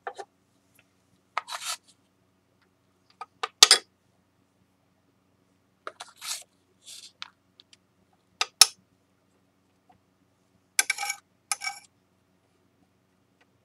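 Scattered clicks, clinks and short scrapes of a metal spatula against a plastic tub and a work board as flour is scooped out and tipped onto the board, with quiet gaps between them; the sharpest clink comes about three and a half seconds in.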